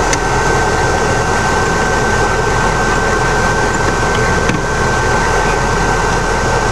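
Military patrol vehicle's engine running steadily, with a constant high-pitched whine over the rumble.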